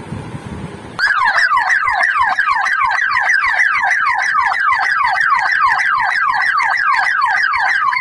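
Electronic alarm hooter (siren) on a dual-beam infrared intrusion sensor, sounding a loud, rapid, repeating downward sweep about four times a second. It starts about a second in. It sounds because the infrared beam has been interrupted, and a delay timer keeps it running.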